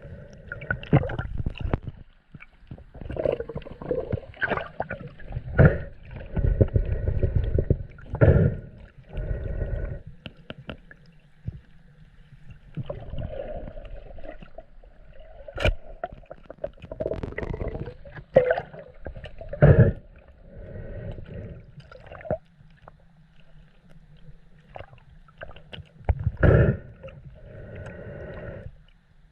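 Shallow seawater sloshing and gurgling around the camera, with irregular rumbles and knocks as it is moved through the water, and one sharp click about fifteen seconds in.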